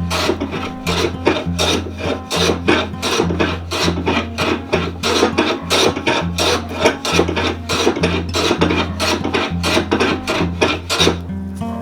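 Wood being rasped or sanded by hand in quick, even back-and-forth strokes, about three or four a second, stopping near the end. Acoustic guitar music plays underneath.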